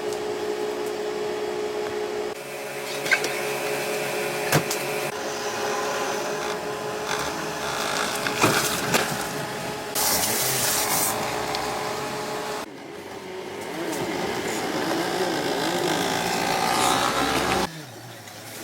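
Power tools running in a series of short clips, each cut off abruptly and replaced by the next, with a few sharp knocks in between.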